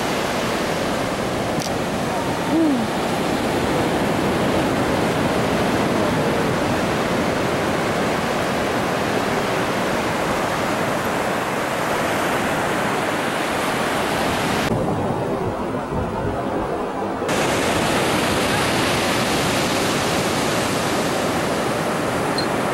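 Ocean surf breaking on a sandy beach: a steady wash of noise, briefly muffled for about two seconds a little after the middle.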